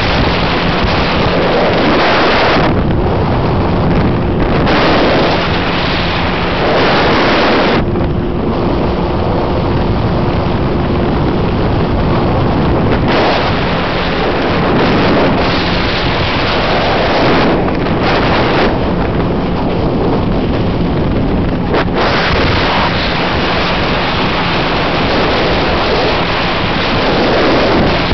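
Motorboat under way in rough water: a steady engine hum under heavy wind noise on the microphone and the rush of water and spray, which swells and eases every few seconds.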